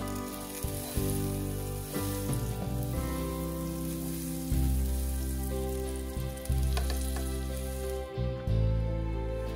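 Food sizzling as it fries in a pan, under background music; the sizzling stops about eight seconds in while the music carries on.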